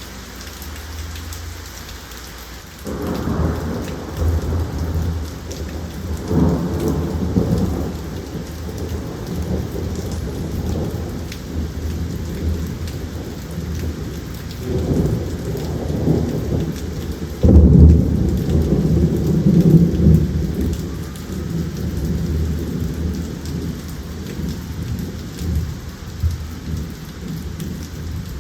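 Steady rain with several rolling rumbles of thunder; the loudest rumble comes a little past halfway.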